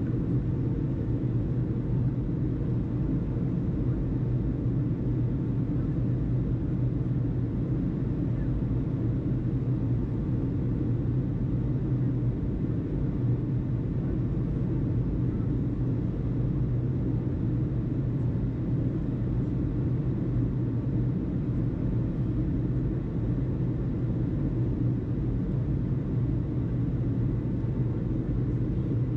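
Steady low rumble and hum with no speech, the background noise of an air traffic control tower-frequency recording between radio transmissions. It holds even throughout, with a faint steady tone above it.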